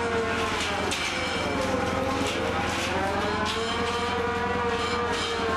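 Trawler engine droning with a winch whine on top, hauling in the trawl warp; the whine's pitch dips about two seconds in and then rises again.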